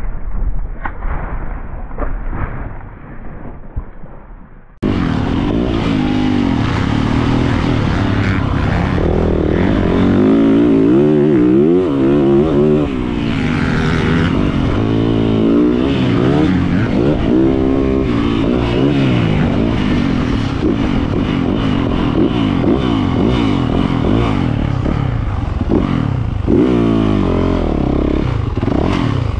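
A motocross bike's engine revving up and easing off over and over, its pitch rising and falling through the gears, heard from on board the bike. Before it, for the first few seconds, muffled clattering and scraping.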